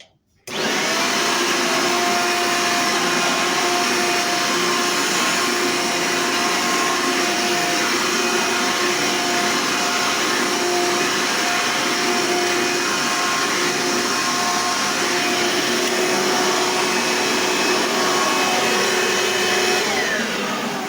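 Eureka Powerline 11-amp vacuum cleaner motor switched on about half a second in, running at a steady whine with a few held tones, then switched off near the end and winding down with a falling pitch. The owner believes this motor may need new bearings.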